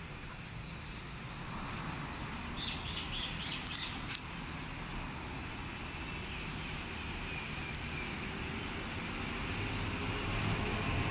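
Steady rumble and hiss of road traffic crossing the bridge overhead, growing louder near the end. A couple of sharp clicks about four seconds in.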